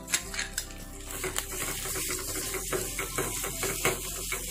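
Sliced onions and green chilli frying in oil in a metal kadai, sizzling, with sharp clicks and scrapes of a utensil against the pan as mashed boiled potato is added and stirred in. The sizzle grows louder about a second in.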